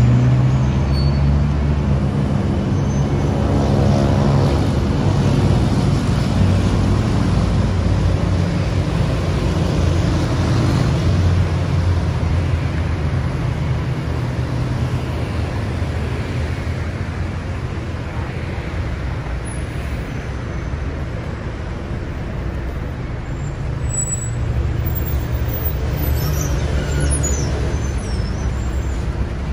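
Street traffic around a bus stop: vehicle engines running with a steady low hum, one engine note swelling a few seconds in, and brief high squeaks near the end.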